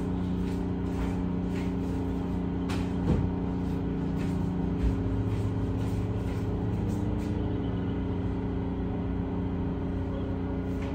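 Steady low engine-like hum made of several level tones, with a couple of faint knocks about three seconds in.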